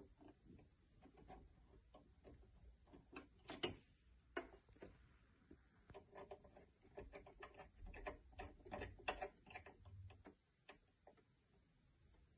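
Faint, irregular clicks and light metallic ticks of a small flathead screwdriver turning the needle clamp screw on a Brother sewing machine, tightening the screw that holds the needle.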